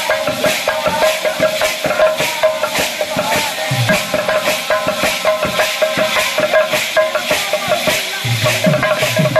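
Live Sambalpuri kirtan music. A held, wavering melody line plays over cymbals clashing in a steady rhythm, with low strokes of a barrel drum that come in more heavily near the end.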